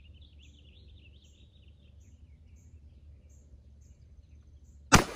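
Birds chirping over a low steady rumble, then near the end a single very loud gunshot from a Taurus Raging Hunter revolver chambered in .460 S&W Magnum, its echo starting to trail off.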